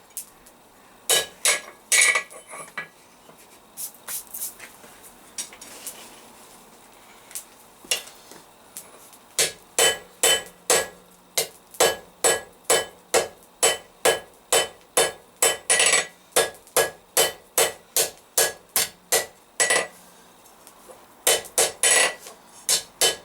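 Hand hammer striking hot steel on an anvil, with a ringing note after each blow, drawing out a leaf stem. A few blows, a lull of several seconds with only light taps, then a steady run of about two to three blows a second, a short pause, and another run near the end.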